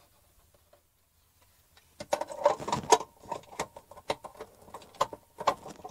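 A run of plastic clicks and taps, starting about two seconds in: a clear plastic cover being handled and fitted onto a blade fuse block.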